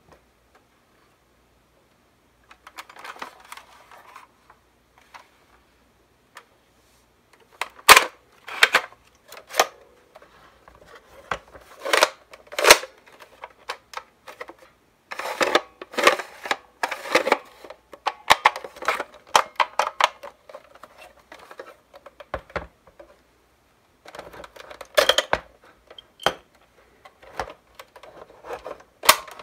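Hard plastic parts of a Nerf Recon CS-6 blaster being handled and taken apart: irregular clicks, knocks and rattles of the shell and plunger parts, the sharpest snaps about eight seconds in.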